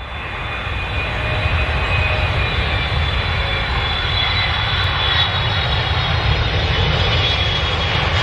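Aircraft engine noise: a steady rumble with a faint high whine above it, fading in over the first second.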